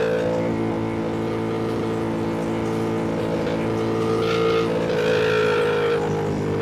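Ducati Panigale V2's V-twin engine running under way at a fairly steady pitch, the note rising slightly about four seconds in, with wind rush over the bike.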